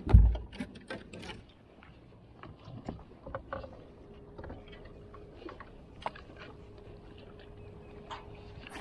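Handling noises on a bass boat's deck: a heavy thump right at the start, then scattered clicks as a spinning rod and reel are handled. A faint steady hum comes in about four seconds in and holds.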